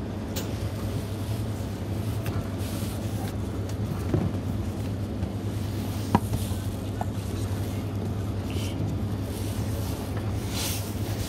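Steady low machine hum, with a few light clicks and knocks.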